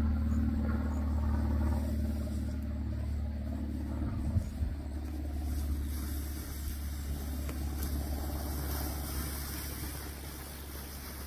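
Low wind rumble on the microphone, with the hiss of fat e-bike tyres rolling through tall dry grass that grows while the bike passes close.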